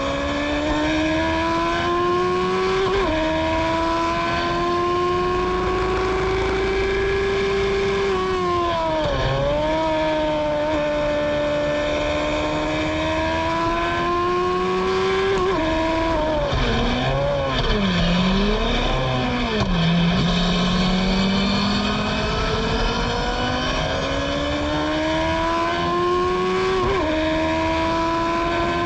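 Formula Gloria's 1000 cc Yamaha engine at racing speed: the engine note climbs steadily through each gear and drops sharply at upshifts about 3, 15 and 27 seconds in. Around 8 seconds it dips briefly, and from about 16 to 20 seconds it falls under braking with quick rev blips on the downshifts before climbing again.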